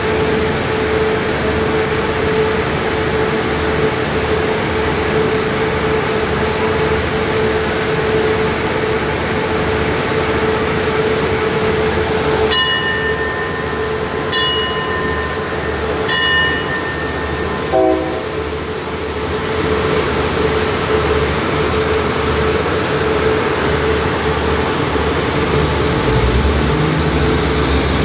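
Diesel passenger train idling at a station platform with a steady hum. About halfway through, its horn sounds three times: one blast of about a second and a half, then two shorter ones. Near the end the engine's note deepens as the train starts to pull away.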